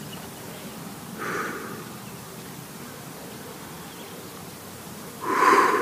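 A shooter breathing while aiming prone: a soft breath about a second in and a louder, longer exhale near the end.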